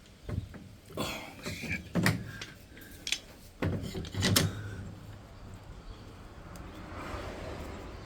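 Knocks, clunks and rattles of hard parts being handled during a washing machine repair, in two bursts about a second in and around four seconds in, then quieter fumbling.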